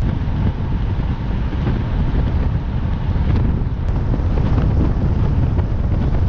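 Wind rumbling loudly and steadily on the microphone of a camera mounted outside a moving car, with the car's road noise underneath.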